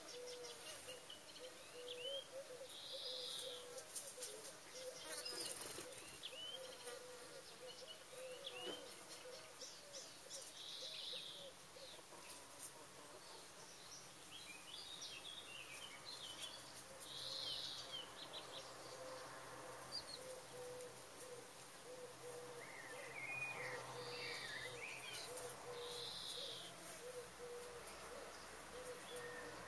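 Steady, wavering buzz of flying insects, with small birds chirping every few seconds.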